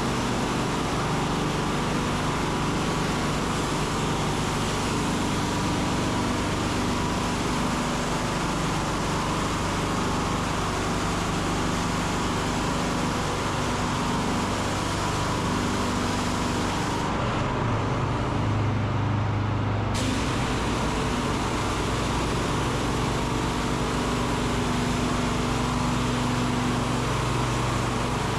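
Engine-driven pressure washer running steadily, a low machine hum under the hiss of its high-pressure water spray on a muddy surface. The spray hiss drops away for about three seconds past the middle, then comes back.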